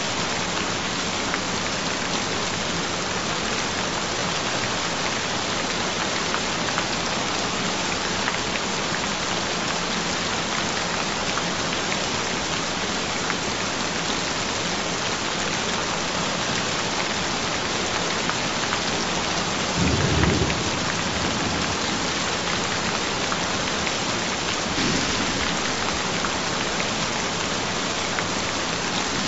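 Steady heavy rain, with a low rumble of thunder about twenty seconds in and a fainter one about five seconds later.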